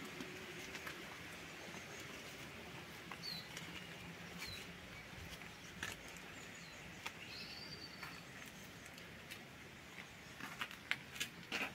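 Garden ambience: a steady low background hiss with a few faint, short bird chirps, and a quick run of clicks and light knocks near the end.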